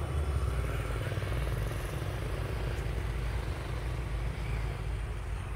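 Low, uneven rumble of wind buffeting the phone's microphone.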